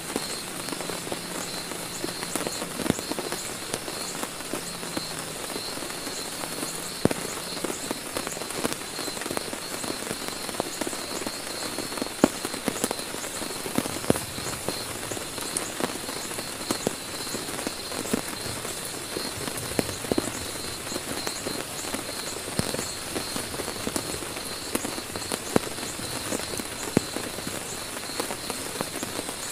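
Heavy rain falling steadily on a tent, a constant wash of rain with many single drops tapping sharply on the fabric.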